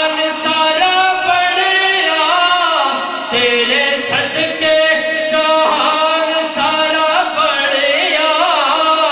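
A man singing a devotional naat into a microphone, holding long notes and winding the pitch in ornamented glides, with short breaks between phrases.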